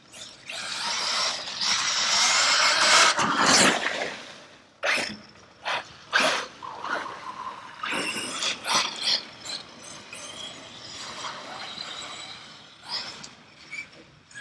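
Traxxas Sledge RC monster truck's brushless electric motor whining under full throttle while its tyres churn and spray through wet mud for about four seconds. After that come a series of sharp knocks and splashes as the truck lands, bounces and throws mud across the track.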